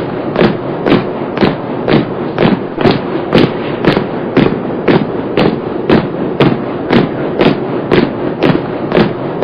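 Marching footsteps striking in unison, a steady beat of about two steps a second over constant background noise.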